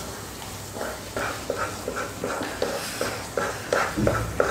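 Wooden spatula stirring and slapping thick banana halwa in a kadai: sticky squelches about three times a second, with a duller thud about four seconds in. The halwa has thickened enough to come away from the pan, the sign that it is done.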